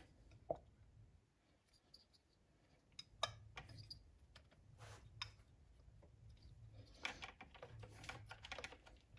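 Faint clicks and light knocks of an R35 GT-R ignition coil pack and its adapter bracket being handled and seated on a 2JZ-GTE VVTi valve cover. There is one sharper click about three seconds in and a quick run of clicks near the end.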